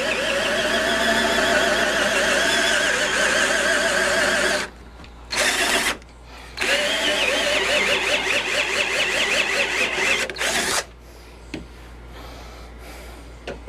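Electric drill driving a cheap one-inch hole saw into wood, its pitch wavering as it loads up. It runs for about four seconds, stops, gives a short burst, runs again for about four seconds and then stops, leaving a few small clicks. It is a slow cut with a saw its user is not pleased with.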